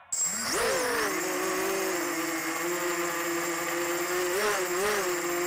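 Brushless motors and propellers of a 250 mm FPV quadcopter (2205 2000kv motors on 4S), heard close from the onboard camera. They spin up sharply, then run at a fairly steady pitch with a high electrical whine, dipping and rising briefly twice near the end as the throttle changes.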